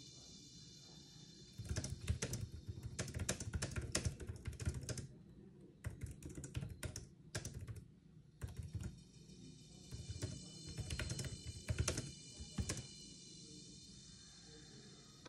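Fast, hard typing on a compact white round-key wireless keyboard: dense clatter of keystrokes in several flurries separated by short pauses, stopping about two seconds before the end.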